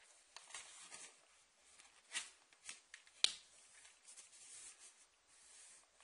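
Paper being handled, folded and creased by hand on a table: faint scattered rustles and crinkles, with one sharp crisp snap a little past three seconds in and a short steady rustle near the end as the fold is pressed flat.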